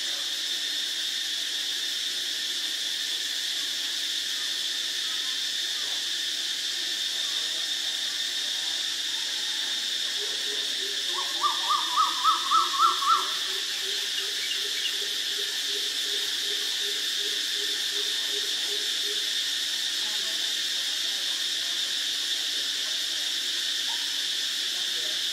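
Asian barred owlet calling: a long run of evenly repeated low hoots, about two a second, with a short burst of about seven louder whistled notes near the middle that rise in pitch and volume. Under it is a steady insect drone.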